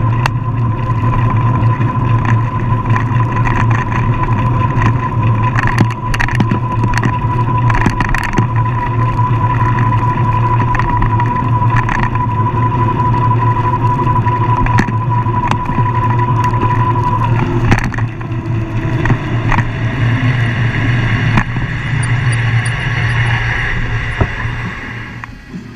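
Vehicle driving on a wet road, picked up by a camera mounted outside: a steady low engine drone under a broad road hiss, with scattered sharp clicks. A thin steady whine runs with it and stops about two-thirds of the way through, and the sound drops off just before the end.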